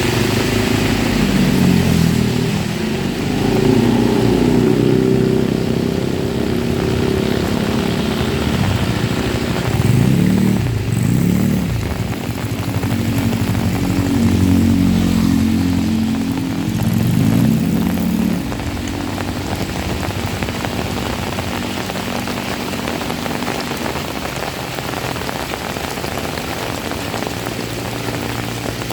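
Steady heavy rain, with a vehicle engine running loudly over it for the first eighteen seconds or so, its pitch dipping and rising twice. After that the engine drops away and mostly the rain is left.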